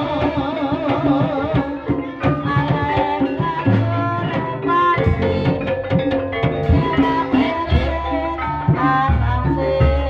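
Live Javanese gamelan music for an ebeg dance: keyed metal or bamboo instruments play stepped melodic notes over fast hand-drum (kendang) patterns, with deep low strokes sounding several times.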